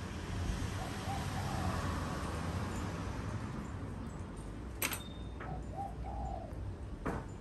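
A dove cooing, a few short low coos, over a steady low rumble. A sharp clink with a brief ring about five seconds in, and another knock near the end.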